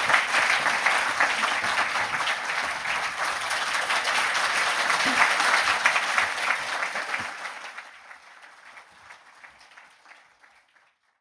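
Audience applauding, a dense patter of many hands clapping that dies away over the last few seconds.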